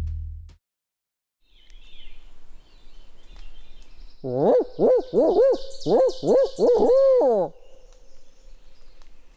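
Owl hooting in the rhythm of a barred owl's 'who cooks for you' call: about seven quick rising-and-falling hoots over some three seconds, ending in a longer drawn-out note that falls away.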